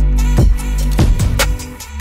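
Intro music with a drum beat and deep, held bass notes.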